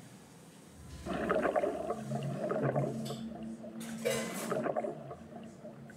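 Underwater splashing and bubbling from a film soundtrack, starting about a second in, with brighter hissing surges about three and four seconds in.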